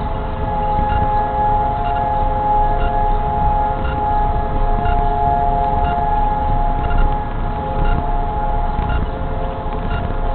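Civil-defence sirens sounding the long, steady Holocaust Remembrance Day memorial wail that marks the national moment of silence. Several sirens hold steady tones at different pitches, with a low rumble underneath.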